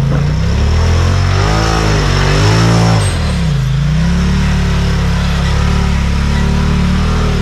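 Side-by-side UTV engine revving under load as it climbs a hill in two-wheel drive. Its pitch rises and falls several times about two to three seconds in, then holds steady.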